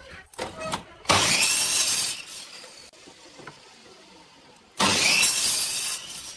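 Compound miter saw cutting through a pine board twice, each cut a loud burst of about a second, about 1 s and 5 s in. Faint knocks of the wood being handled between the cuts.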